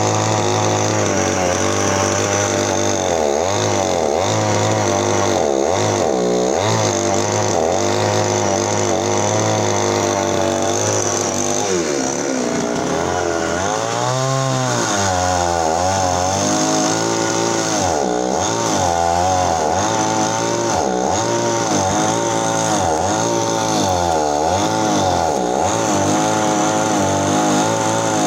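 Chainsaw running and cutting into an areca palm stump and its roots, its engine pitch rising and falling again and again as it bogs in the wood and revs back up.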